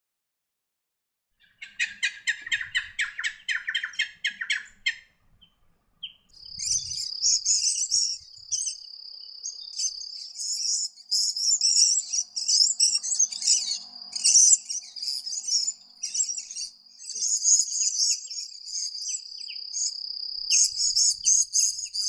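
Purple-crowned lorikeets calling: a rapid run of high chattering notes starting about a second and a half in, then, from about six seconds, bursts of sharp high twittering over a steady high-pitched insect drone.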